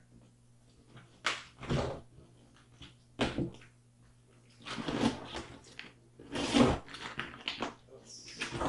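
Cardboard shipping box being opened by hand after its tape was cut: a few separate knocks, then stretches of rustling and scraping as the flaps and packing are pulled back.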